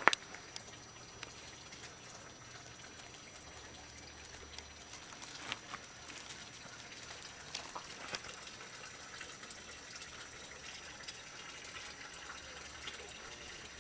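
Steady, even hiss of running water, with a few faint clicks.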